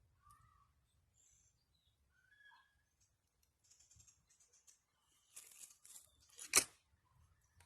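Faint bird chirps, then a brief rustle and a single sharp crack of an air rifle firing about six and a half seconds in.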